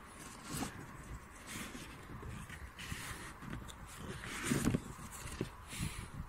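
A large cardboard telescope box being handled and opened: irregular rustling and scraping of cardboard, with a louder bump about four and a half seconds in.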